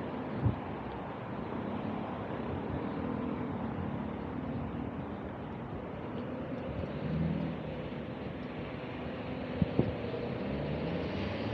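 Steady city street noise of passing motor traffic, with a few sharp knocks about half a second in and twice just before the end.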